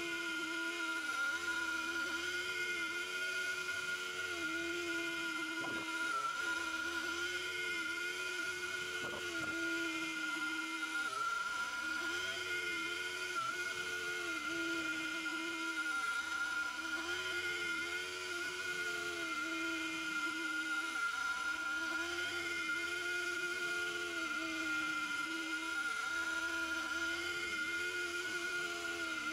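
CNC mill spindle running with an end mill cutting hardened steel under mist coolant. There is a steady high whine, and a lower tone that dips and recovers every second or two as the cutter loads up, over a constant hiss.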